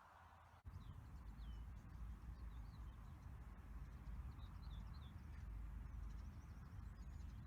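Small birds chirping faintly, short high notes in quick little runs, over a steady low rumble that starts abruptly about half a second in.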